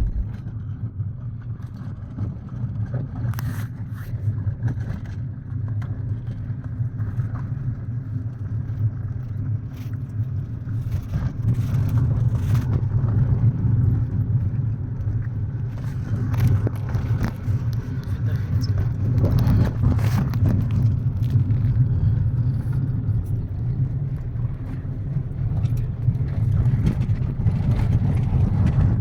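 Kia Picanto driving on a gravel road: a steady low rumble of engine and tyres on the road, with scattered clicks and knocks throughout.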